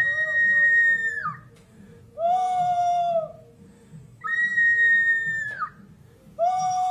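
Clay whistling vessel giving four drawn-out, whistle-like animal calls of about a second each, alternating between a higher and a lower pitch.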